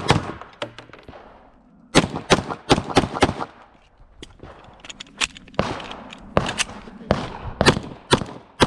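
Semi-automatic pistol shots fired in quick strings of several shots each, with pauses of one to two seconds between strings.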